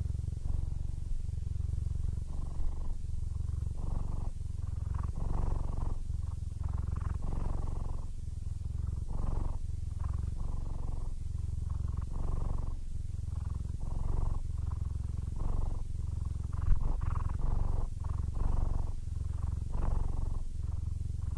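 Siamese cat purring steadily and close up, the purr pulsing with each breath in and out, about once a second: contented purring.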